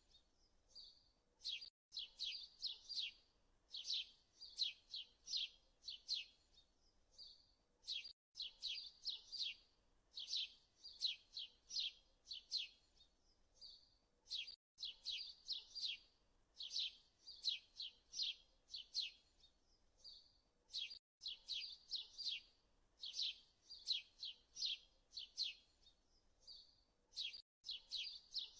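Small birds chirping in quick runs of high notes. The same stretch of birdsong repeats about every six and a half seconds, each pass starting after a brief gap, like a looped birdsong track.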